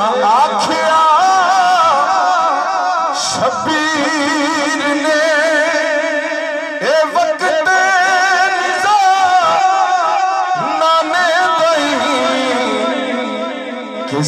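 A man sings a devotional manqabat through a microphone, drawing out long ornamented notes with a wavering vibrato rather than distinct words.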